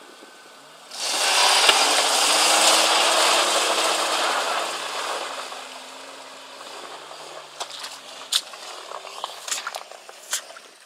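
Off-road 4x4 engines revving as a Jeep Cherokee XJ is pulled on a tow strap out of a muddy puddle, tyres churning through mud and water. The loud rushing surge starts suddenly about a second in and fades over a few seconds, and scattered sharp crackles follow near the end.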